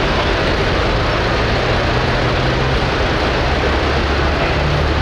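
Hot farm class pulling tractor's diesel engine running hard: a loud, steady din with low engine tones that shift slightly in pitch.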